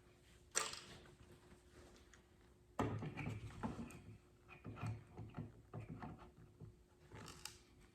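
Scattered light clicks and knocks of pliers working finish nails out of thin pine birdhouse boards, with a busier run of knocks and bumps from about three seconds in.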